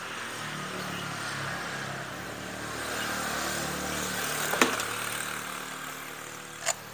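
A motor vehicle's engine going past. Its sound grows louder for about three seconds and then fades, and a single sharp knock comes about two-thirds of the way through.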